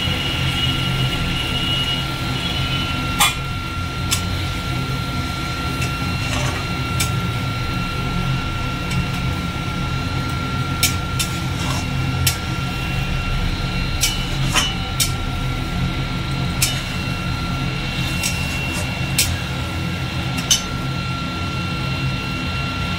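Metal spatula knocking and scraping against an aluminium kadai while stirring a thin yogurt gravy: a dozen or so short sharp clicks spread through. Under them runs a steady low hum with a thin high whine.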